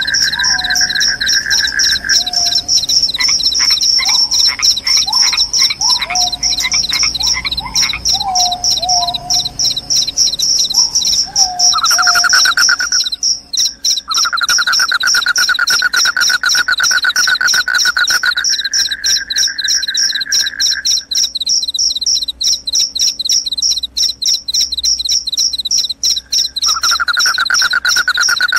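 Crickets trilling, a high fast-pulsing trill throughout and a second, lower trill that breaks off and comes back several times. From about two seconds in to about twelve seconds a bird calls over them with a run of short, quick sliding notes.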